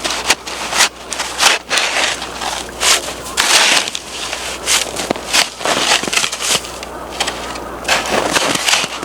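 Wood fire crackling, with irregular sharp snaps and pops.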